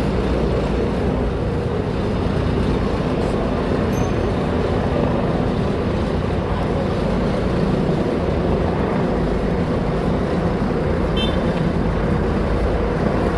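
Helicopter flying overhead, its rotor and engine sound steady and unbroken, mixed with city street traffic.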